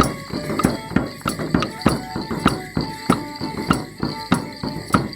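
Border Morris dance music: a band plays a tune while sharp, regular clacks land about three times a second, with bells jingling.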